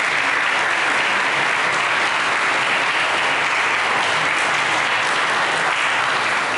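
Audience applauding steadily in a church hall, a dense even clapping that holds its level throughout.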